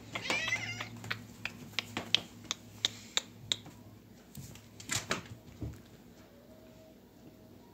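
A cat gives one short meow near the start, followed by a run of light, sharp metallic clicks about three a second, then a louder rattle and a soft thud about five seconds in: a thin metal chain toy being handled, thrown and landing on a wooden floor and rug.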